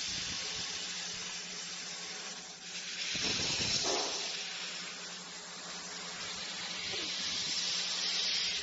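Robot-mounted laser cutting head cutting sheet metal: a steady hiss of assist gas jetting from the nozzle, swelling and fading as the head moves around the part, over a steady low hum.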